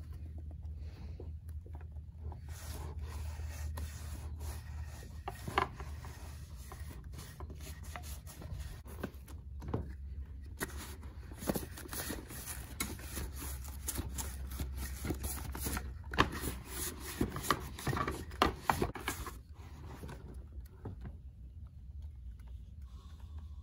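Sticky lint roller rolled and rubbed over the inside of a leather handbag, a noisy rubbing in irregular strokes with small clicks as the bag is handled. It tails off in the last few seconds.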